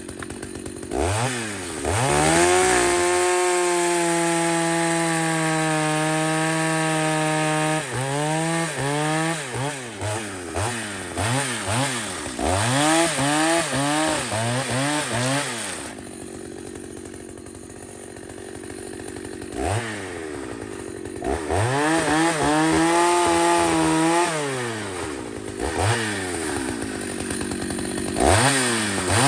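Two-stroke Jonsered 920 chainsaw revved repeatedly. It is held at full throttle for several seconds at a time, blipped up and down in short bursts, and drops back to a lower speed for a few seconds in the middle.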